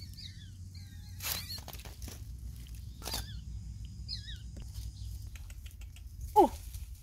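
Faint, high, chirping squeaks from small animals and a few crackles of dry leaf litter, then one short, loud call that falls sharply in pitch near the end.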